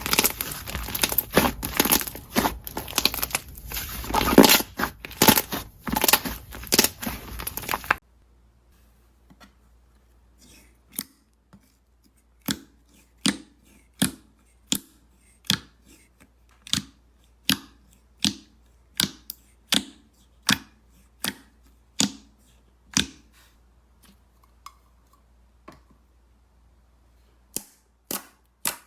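Hands playing with slime. For the first eight seconds there is dense crunchy crackling, then a sudden change to near quiet with single sharp pops, a little over one a second, as the slime is pressed.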